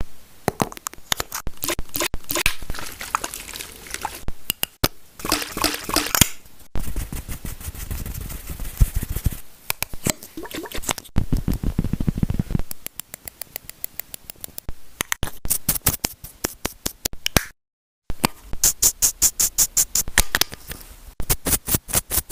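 Handling noise while unboxing: a paper carton rustling and tapping, then a plastic pump bottle turned in the hand with irregular taps and, near the end, quick runs of clicks.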